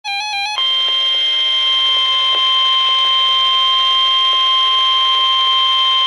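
NOAA weather radio sounding a warning alert: a brief warbling two-pitch beep for about half a second, then the steady 1050 Hz Weather Radio warning alarm tone, loud and unbroken.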